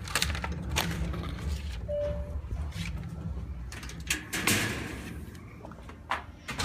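A house door and a mesh security screen door being opened onto a patio: a series of latch clicks and knocks, the loudest about four and a half seconds in, over a steady low rumble.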